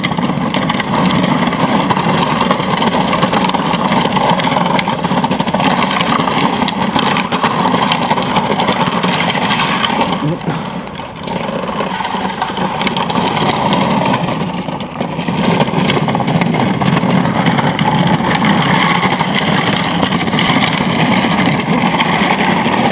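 Kids' ride-on Dodge toy truck converted to radio control, its brushless electric motor and gear drive running while the hard plastic wheels rumble over cracked asphalt. Loud and steady, dipping briefly twice, about a third of the way in and again a little past halfway.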